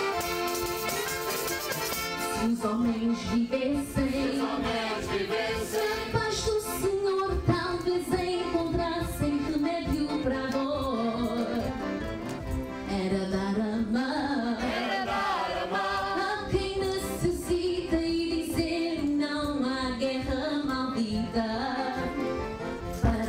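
A woman sings a solo melody into a microphone over instrumental accompaniment, a verse from a Terceira (Azores) carnival dance song.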